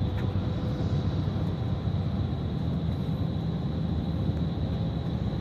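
Bus running along the road, heard from inside the cabin: a steady low engine and road rumble with a thin, high, steady whine over it.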